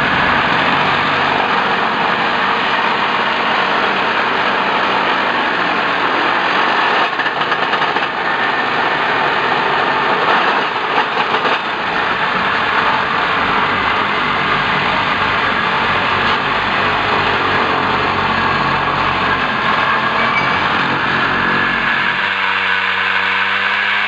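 Road-rail excavator's engine and its hydraulic track-tamping head running steadily in the ballast, a loud, dense machine noise. Near the end a smaller engine with a clear pitched note starts up, from a hand-held powered track tool.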